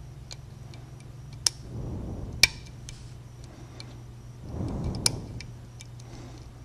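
Lock pick and music-wire tension tool working the pins of a custom-pinned 5-pin Corbin pin-tumbler lock: irregular small metallic clicks and ticks, with one sharper click about two and a half seconds in. A steady low hum runs underneath.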